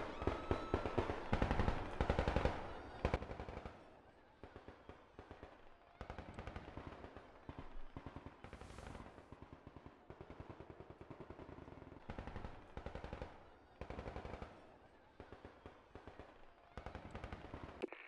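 Automatic gunfire sound effect: bursts of rapid shots, densest and loudest in the first few seconds, then shorter, quieter volleys every second or two.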